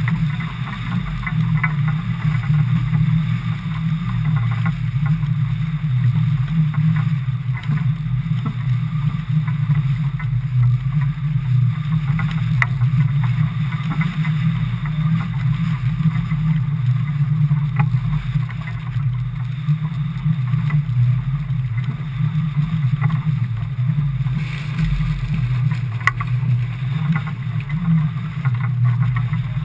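Steady low rumble of strong wind and water aboard a motorboat underway or holding station in choppy water, with a few faint knocks.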